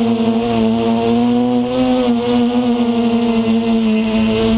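Quadcopter's four brushless motors (Tiger Motor 2216 800kv) spinning 10x5 propellers in flight, giving a steady buzzing hum whose pitch drifts slightly with throttle and rises a little near the end.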